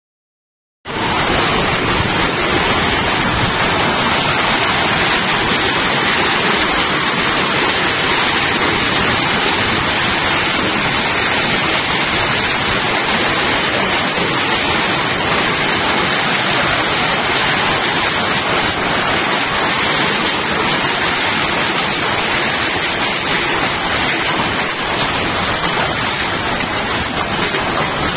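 Heavy rain and hail pouring down in a dense, steady hiss, starting suddenly about a second in.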